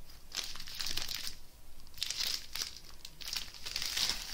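Plastic wrapping crinkling in a series of irregular rustles as a wrapped bundle of small bags of diamond painting drills is handled and set down.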